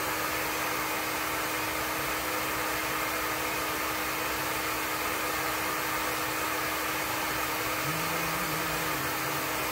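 Handheld terahertz hot-air blower running steadily: an even fan rush with a constant hum.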